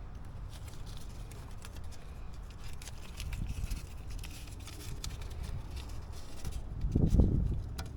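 Hands working on parts in a car's engine bay: scattered light clicks and rustling, with a dull thump about seven seconds in.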